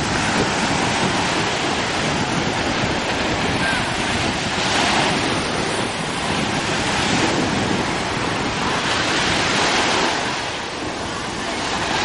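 Small sea waves breaking and washing up onto a sandy beach: a steady rush of surf that swells every two to three seconds as each wave breaks.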